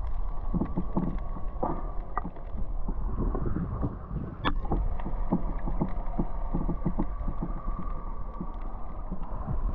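Water sloshing and lapping against a snorkeler's camera as it moves at the surface and just under it. The sound is muffled and rumbling, with many scattered clicks and pops and a faint steady hum underneath.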